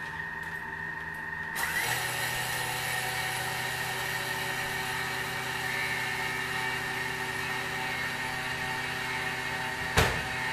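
Thermomix blade spinning at speed 9, milling granulated sugar: a loud, steady whir that starts about a second and a half in. A sharp knock comes near the end.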